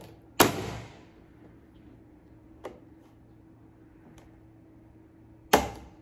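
Plastic hand-press vegetable chopper's lid pushed down hard, forcing an onion through its dicing blade grid: a sharp clack about half a second in and another near the end, with a faint click in between.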